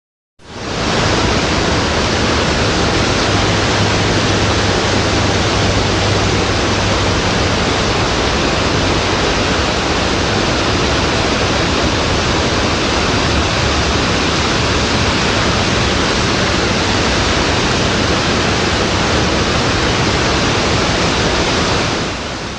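Wind sound effect: a steady, even rushing of wind that fades in about half a second in and fades out near the end, with little gusting.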